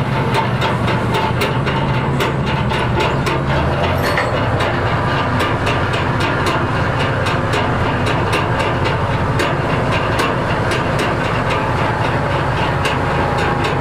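Heavy machinery on a crane barge running steadily, with a hum and a regular ticking about three times a second; its low rumble changes about four seconds in.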